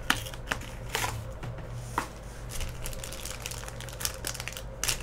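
A trading card hobby box torn open by hand, then the black plastic wrapper of the pack inside crinkling as it is handled: irregular crackles and small tearing clicks.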